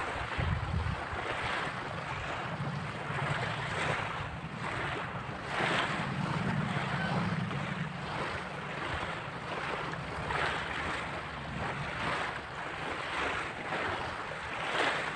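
Small waves lapping and washing over a pebble shore, swelling softly every second or two, with wind rumbling on the microphone.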